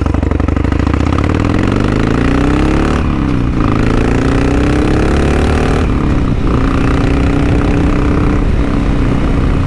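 Harley-Davidson Sportster XL1200's V-twin engine accelerating away from a stop, its pitch rising, then dropping at an upshift about three seconds in. It rises again to a second shift about six seconds in, then pulls steadily.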